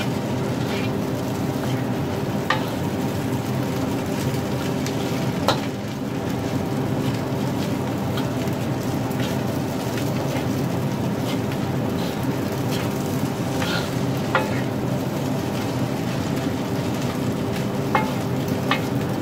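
Egg fried rice sizzling in a black wok while a metal spatula stirs and scrapes it, the spatula clicking against the wok now and then. A steady hum runs underneath.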